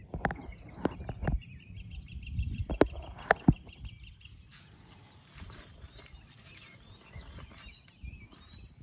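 Several sharp knocks and clicks in the first four seconds, over a bird calling in a quick run of repeated high notes that stops about four seconds in; then faint outdoor background.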